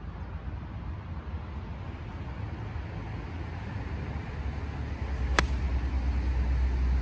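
A golf ball struck off the tee with a pitching wedge: one sharp click about five seconds in. Under it, a steady low rumble that grows louder near the end.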